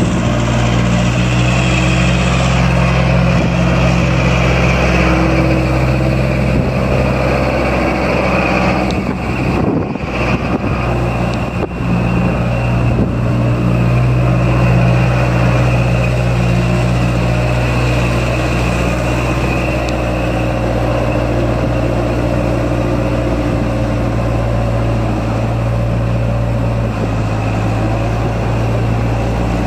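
New Holland LB75B loader backhoe's 85 hp diesel engine running steadily at a constant speed, with a brief rough, uneven patch about ten seconds in.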